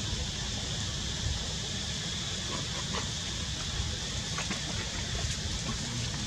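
Steady outdoor background noise: an even high hiss over a low rumble, with a few faint clicks.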